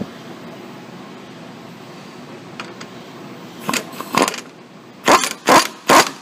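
Impact wrench given short bumps to tighten steering ball joint nuts: five brief bursts in the second half, two spaced apart and then three about half a second apart.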